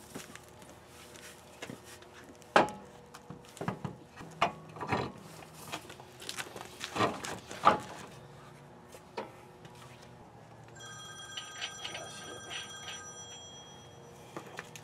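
Steel wheel and tire clunking and knocking against the hub and lug studs as it is lifted and pushed back onto the truck's front hub. Near the end, a high electronic ringing that stops and starts for a couple of seconds.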